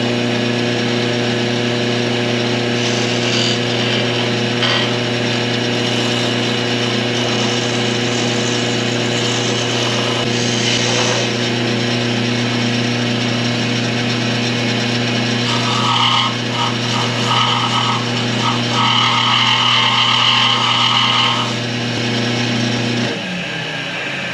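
Wood lathe running with a steady motor hum while a skew chisel cuts into a walnut blank, the cutting loudest in a long stretch near the end. The motor hum stops a second or so before the end.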